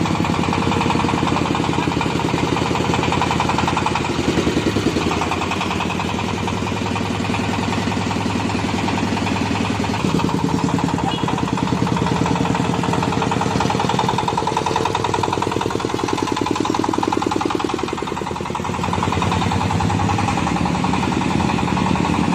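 24 hp engine of an oil palm fruit thresher running steadily, with a fast, even firing rhythm. Its note changes a few times, about four seconds in, about ten seconds in and again near the end, as the load or throttle shifts.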